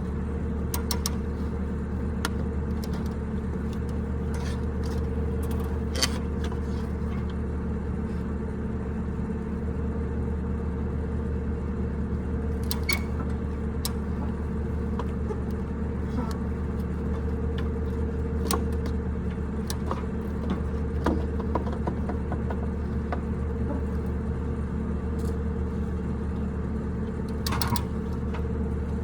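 An engine running steadily at an even idle, with scattered light metallic clicks and clinks over it.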